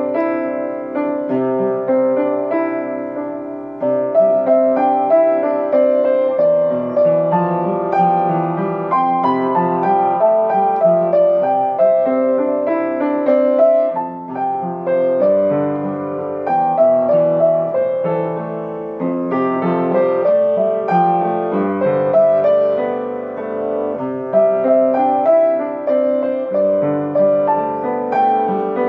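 Upright piano played by hand: a melody over a steady flow of accompanying notes, without pause.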